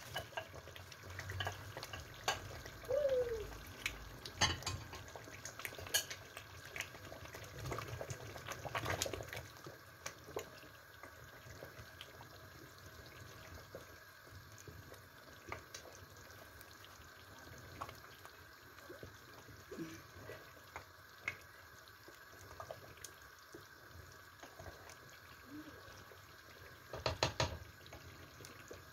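Fried chicken and fish pieces sliding off a plate into a pot of thick tomato stew with wet plops and knocks, then a wooden spoon stirring the sauce in the metal pot, with scattered clicks and a short cluster of knocks near the end.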